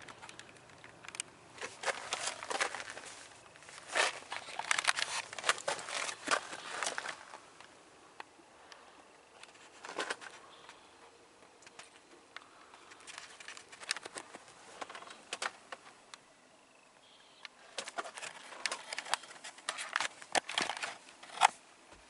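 Rustling and crackling handling noise from moving around inside the car with a handheld camera, in several irregular bouts of a few seconds each with quieter gaps between.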